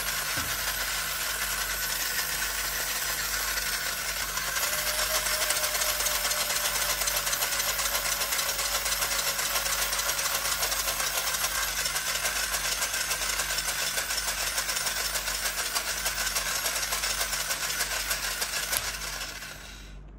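Small DC motor and plastic gearbox of a toy monkey overdriven at 31 volts, running flat out with a loud, steady buzzing rattle as its arms spin. It cuts off near the end as the current falls to zero.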